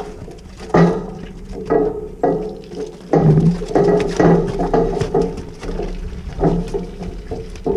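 Dairy heifers bawling in a cattle crush: a string of short calls, loudest a little after the middle, with sharp knocks from the animals jostling.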